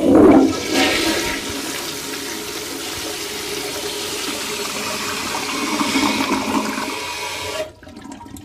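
A loud rush of flushing water that starts suddenly and cuts off abruptly near the end.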